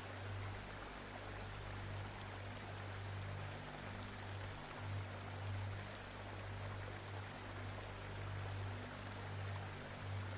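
Quiet, steady hiss of water with a low hum underneath, its upper tones fading in and out.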